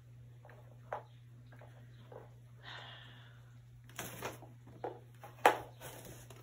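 Cardboard box rustling and knocking as a cat rolls and shifts about inside it: soft scattered ticks, a brief scraping rustle about three seconds in, then a few sharper knocks, the loudest about five and a half seconds in.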